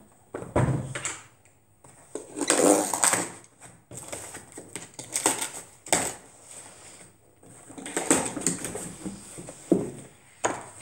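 A cardboard box of books being opened and unpacked: a low thud about half a second in, then bouts of cardboard and paper rustling and scraping, with a sharp click near the end.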